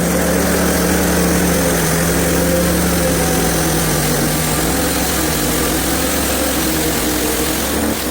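Hudson HFE30 portable bandsaw mill running steadily, its engine driving the band blade through a log. The blade has one bent tooth.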